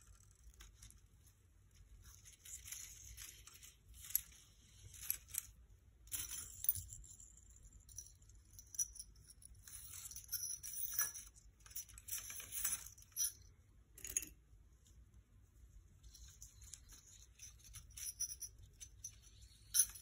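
Hands working jute twine and thin craft wire over paper: on-and-off scratchy rustling and scraping, with a few sharp clicks.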